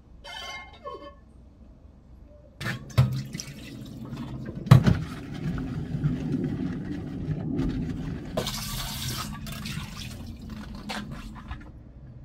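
Water running into a stainless steel pot in a stainless steel sink as the pot is washed, with two clunks of metal on metal, the second one loud, and a brief hissing spray a little past halfway.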